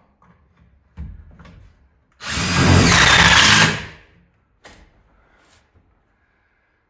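Power drill run in one burst of about a second and a half, its pitch dipping slightly partway through, with a single knock shortly before it.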